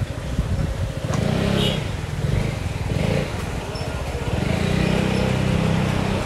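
A small pickup truck's engine running at low speed as the truck rolls slowly past close by, loudest near the end. A motor scooter's engine also passes early on.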